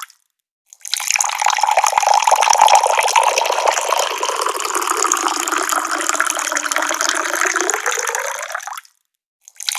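Water pouring from a tap in a steady splashing stream. It cuts out to dead silence for under a second at the start and again about a second before the end, then comes back.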